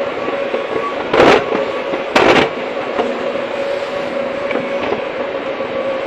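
Hydraulic excavator running with a steady engine noise and whine, broken by two short, loud crashes about a second apart early on, as earth and water come down.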